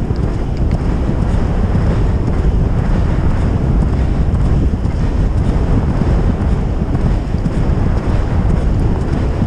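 Heavy, steady wind buffeting a helmet camera's microphone as the horse carries it across the field at speed, a dense low rumble.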